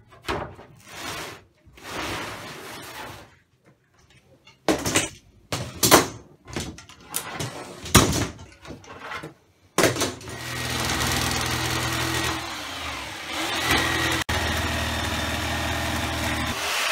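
Steel bar clamps being taken off a glued-up pine panel: a series of sharp clacks and knocks of metal on wood. About ten seconds in, an electric jigsaw starts and runs steadily, cutting a circle out of the pine board.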